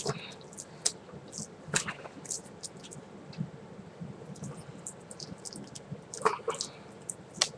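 Plastic packaging of a sealed Blu-ray case being worked at by hand: scattered crinkles and sharp clicks, a handful of them spread apart, as the tight seal resists opening.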